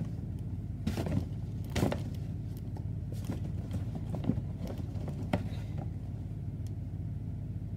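Rummaging through a bin of foam blaster balls: scattered short knocks and rattles, about one a second, that thin out in the last couple of seconds, over a steady low hum.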